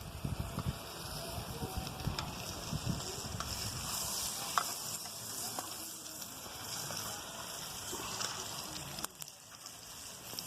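Food sizzling as it fries in a pan, a steady hiss that dips briefly near the end.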